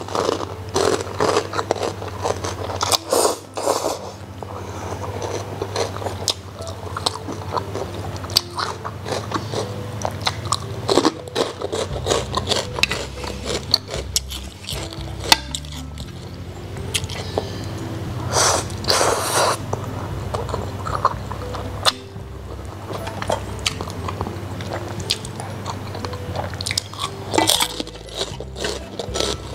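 Close-miked eating sounds of instant noodles: noodles slurped in a few times, with wet chewing in between, over quiet background music.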